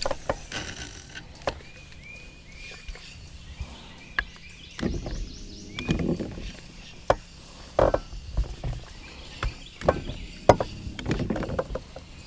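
Rod, spinning reel and boat handling noise: irregular clicks and knocks with a few heavier thumps, as a jerkbait is cast and reeled in from a small bass boat.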